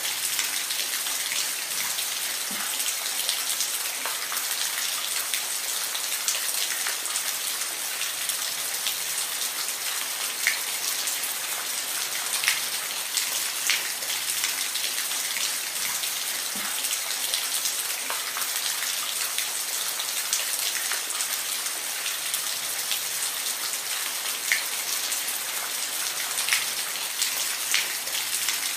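Steady rain falling on a surface, a constant hiss with individual drops ticking sharply here and there.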